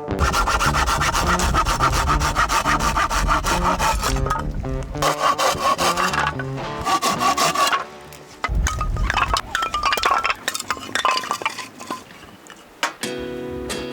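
Hand saw cutting through a wooden shelf board in quick back-and-forth strokes, with a short break about eight seconds in and lighter, more scattered strokes afterwards.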